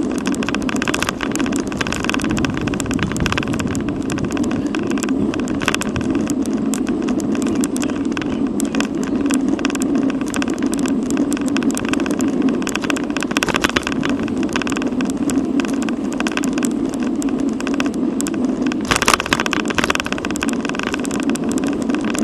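Riding noise on a bicycle-mounted camera: steady wind rush on the microphone with tyre and road noise and frequent small rattles as the bike rolls over the pavement, with a louder rush about nineteen seconds in.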